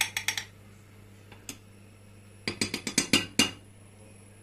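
Metal spoon clinking against a small pot while stirring a yogurt and egg-yolk tempering mixture: a short run of quick clicks at the start and a longer run about two and a half seconds in.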